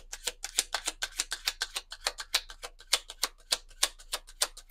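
A tarot deck being shuffled by hand: a quick, steady run of crisp card clicks, several a second.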